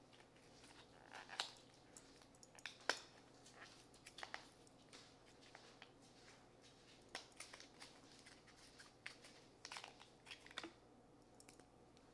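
Near silence with faint, scattered short clicks and rustles from small objects being handled, the loudest about one and a half and three seconds in.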